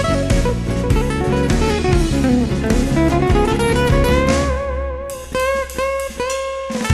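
Guitar playing a 12-bar blues lead in F sharp minor over a drum and bass backing, with bent notes and vibrato. In the last couple of seconds the backing breaks into short stops under held notes.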